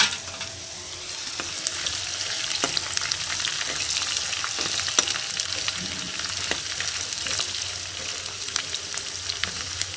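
Sliced onions and julienned ginger sizzling in hot ghee in a metal pan as a metal spoon stirs them, with scrapes and small clicks; a sharp knock right at the start. This is the ginger going into the onion-and-ghee tadka.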